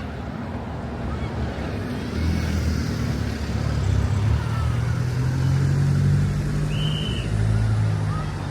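A diesel train arriving, its engine drone low and steady and growing louder from about two seconds in. There is a brief high squeal about seven seconds in.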